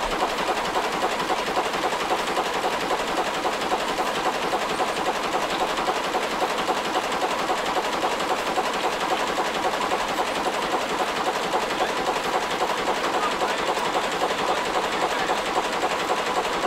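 1929 Gardner 3J5 two-stroke reversible marine engine running steadily, giving a rapid, even mechanical clatter.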